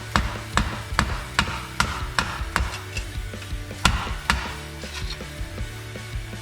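Hammer striking metal, about seven quick blows at an even pace and then two harder ones near the middle, straightening a small bent metal part from a pop-up camper's roof lift. Background music with a steady beat plays underneath.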